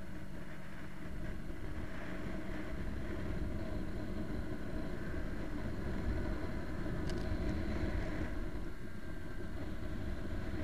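Motorcycle being ridden at road speed: its engine runs at a steady pitch under heavy wind noise on the camera. A brief sharp click about seven seconds in.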